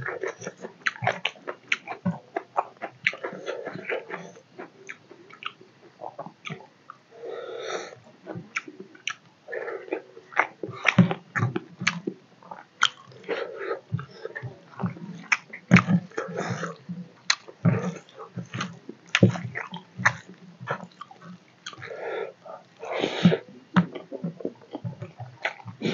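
Close-miked wet chewing of a mouthful of rice and fish curry, with frequent sharp irregular smacks and clicks from the lips and mouth.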